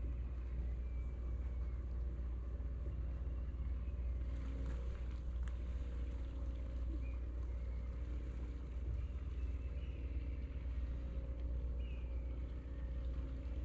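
A boat engine running steadily: a low, even rumble with a faint steady hum above it.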